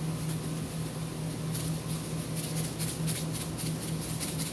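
Salt shaken from a plastic shaker over a plate of fries: a quick, regular rattle of about four shakes a second that starts about a second and a half in. A steady low hum runs underneath.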